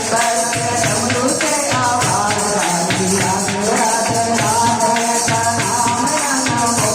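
Devotional bhajan music: a melody sung over steady jingling percussion and a regular low drum beat.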